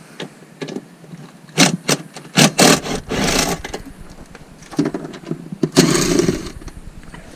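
A run of sharp knocks and clanks, then two stretches of harsh scraping and rattling, as the car seat's bolts and fittings are worked loose.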